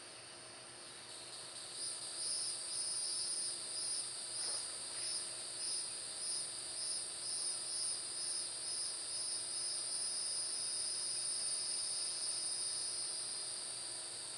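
Cicadas buzzing: a high, loud insect drone that swells and pulses about twice a second, then settles into a steady buzz and fades near the end.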